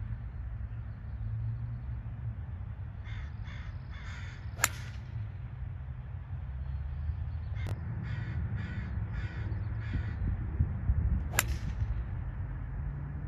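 A crow cawing in two runs of four or five calls, and a golf driver striking the ball off the tee twice, a sharp crack about four and a half seconds in and again about eleven seconds in, with a fainter click in between. A low steady rumble lies underneath.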